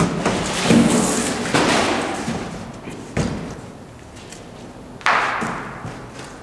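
Cardboard being handled: a run of rough scraping rustles and thuds in the first two seconds, then a sharp knock about three seconds in and another about five seconds in that trails off in a scrape.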